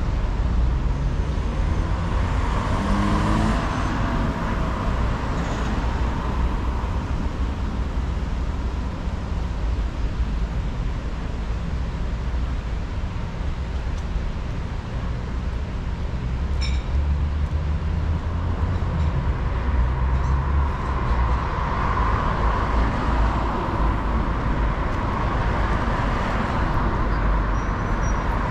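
Road traffic on a city street: a steady wash of cars driving past, swelling as louder vehicles pass a few seconds in and again near the end.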